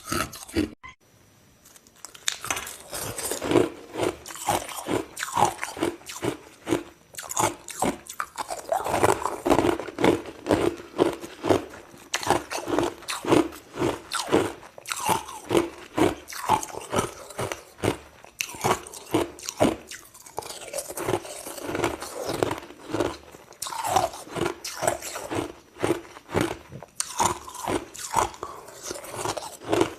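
Crushed ice being bitten and chewed: a steady run of rapid crunches, after a brief pause about a second in.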